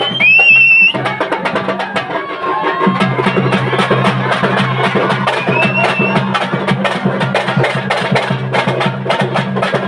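Traditional festival percussion: dense, rapid drum strikes, with a high-pitched instrument playing short rising notes in the first second and a steady low hum underneath.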